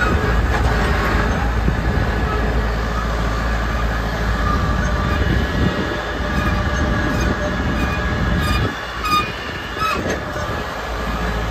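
Tractor running steadily while pulling a MULTI-drill ND-60T seed drill through a planting pass, with short metallic squeaks and clanks from the drill. The low engine rumble dips for a moment near the end.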